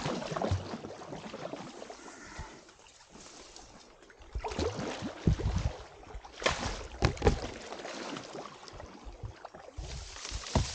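Kayak paddle strokes splashing and sloshing in a shallow, narrow stream, in irregular bursts. Near the end come brushing and scraping sounds as the boat pushes into dense reeds.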